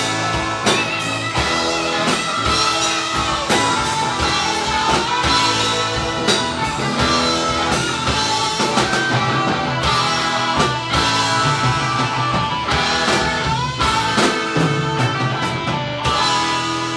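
A rock band playing live, with electric guitars, electric bass and a drum kit, the drums hitting steadily under sustained guitar notes.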